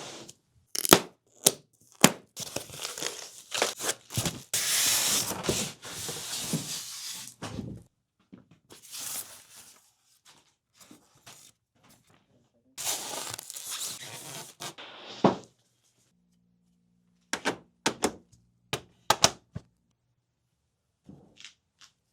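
A large TV's cardboard shipping box being opened by hand: tape tearing and cardboard scraping in stretches of a few seconds, between sharp clicks and thunks as packing parts are handled.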